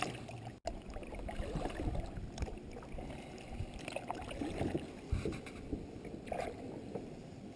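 Steady low wind noise on the microphone mixed with light water sounds, with a few small knocks and clicks. The sound cuts out for an instant under a second in.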